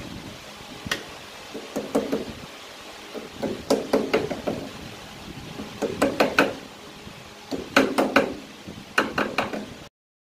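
Clusters of dull knocks and taps on a metal 5C collet chuck seated on its lathe back plate, a few at a time every second or two, cutting off abruptly near the end.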